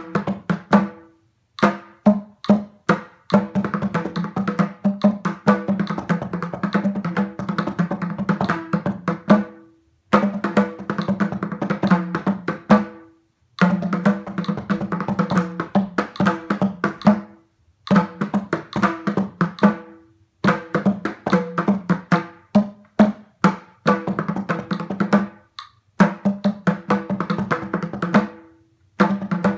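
Mridangam played solo: fast runs of strokes in phrases a few seconds long, broken by short pauses, over a ringing pitched tone from the tuned drumhead.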